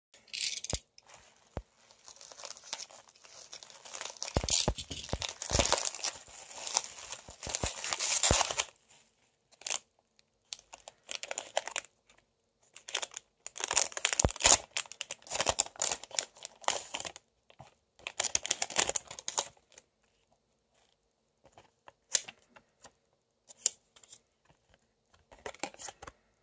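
Clear plastic packaging crinkling and rustling as a phone grip in its sleeve is handled and opened over bubble wrap. It comes in several bouts with short pauses, then thins to a few scattered crackles near the end.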